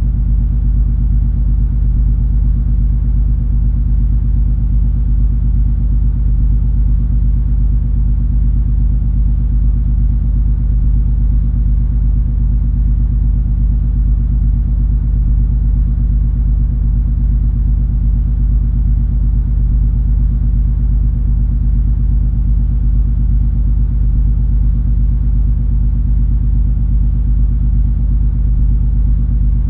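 Steady low rumble and hum of the cruise ferry MS Color Fantasy's engines and machinery as the ship is under way. A few constant low tones sit over a deep drone, with no changes.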